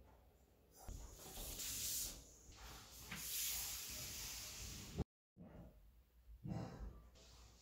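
A person breathing out in long, hissy breaths through pursed lips, then a short rustle of paper being handled after a cut.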